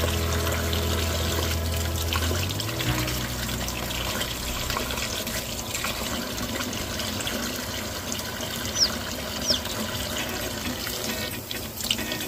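Kitchen faucet running steadily, the stream splashing onto hands and a chick held under it to soften a pasted-up vent. A chick peeps twice, short and high, about nine seconds in.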